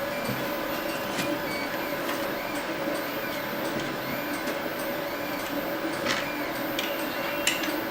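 A few light metal clicks from an Allen key and screws being worked into a 3D printer kit's frame, over a steady background hum.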